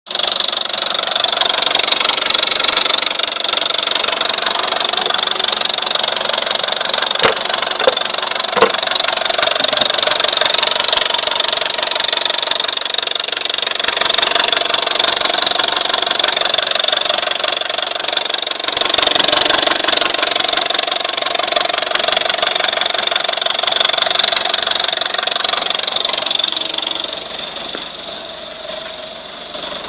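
VW Scirocco 1.4 TSI 160 hp twincharged four-cylinder engine running steadily, with a fast ticking rattle over the engine note and a few sharper clicks, the unexplained weird noise the owner is showing. The level dips near the end.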